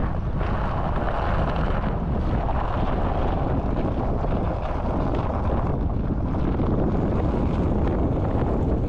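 Steady wind rush on a microphone mounted on the hood of a moving vehicle, over the vehicle's running and road noise as it drives along a snowy lane.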